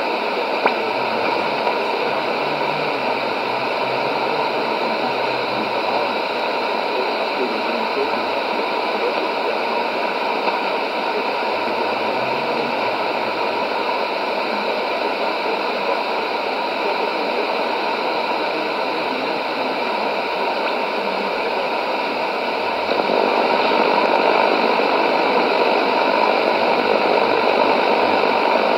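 Sony ICF-2001D shortwave receiver tuned to 6160 kHz AM, its speaker giving a steady hiss of static and band noise with no clear programme audible. The noise steps up and grows louder about four-fifths of the way through.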